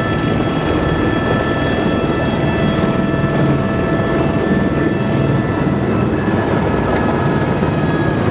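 Helicopter running in flight: a loud, steady drone of rotor and turbine noise with a thin high whine on top, which dips slightly in pitch about six seconds in.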